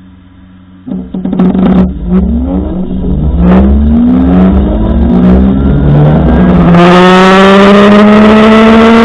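Electric motor of a GSX-R e899 K2 starting up about a second in with a harsh, rough grinding noise at slow speed, its whine rising in pitch as it speeds up and turning smoother near the end. The owner puts the terrible noise down to copper and metal pieces loose next to the rotor and short-circuited, blackened windings.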